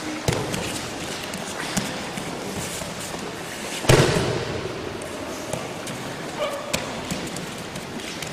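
A person thrown in an aikido technique landing on the tatami mats in a breakfall: one heavy thud about four seconds in, with a short echo, among a few lighter knocks.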